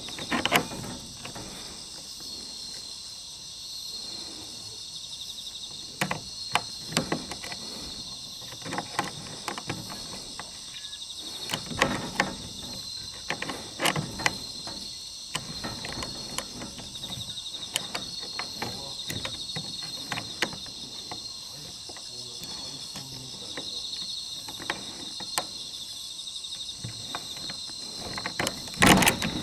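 A steady chorus of insects, with scattered sharp clicks and knocks over it, as a stiff combination dial and its fitting are worked by hand and fail to open.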